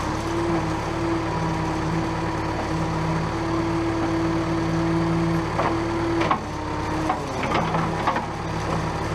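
JCB backhoe's diesel engine running steadily under load, its note dipping briefly partway through, with wood cracking and splintering several times in the second half as a tree is pushed over.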